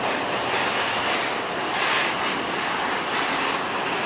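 Mercedes-Benz OH 1526 coach pulling away and driving slowly past: its engine and tyres make a steady, loud rushing noise.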